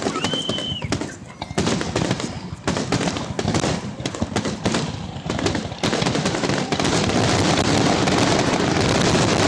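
Fireworks going off in a rapid series of bangs and crackles, with a short high whistle near the start; from about six seconds in the pops run together into a dense, continuous crackle.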